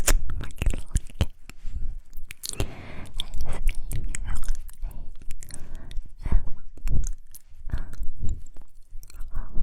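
Close-miked wordless mouth sounds: wet clicks, pops and smacks of lips and tongue, irregular and close together, like chewing.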